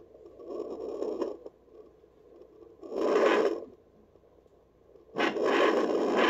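Handheld fetal doppler's speaker giving scratchy, whooshing bursts as its probe is rubbed and slid over a pregnant dog's belly: three bursts, the first soft, the last loudest and longest. No steady heartbeat rhythm comes through.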